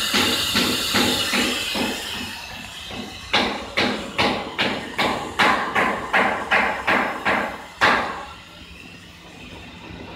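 Automatic steel-rule cutting machine working its pneumatic cylinders: a hiss of air with quick knocks, then a run of about a dozen sharp, evenly spaced clacks, about three a second, that stops near the end.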